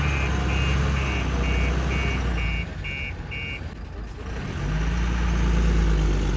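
Truck's reversing beeper beeping about twice a second over its running diesel engine. The beeping stops about three and a half seconds in, and the engine then grows louder.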